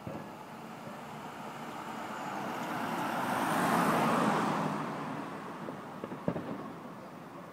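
A motor vehicle passing close by, its tyre and engine noise swelling to a peak about halfway through and then fading away. A couple of short sharp cracks sound near the start and again about six seconds in.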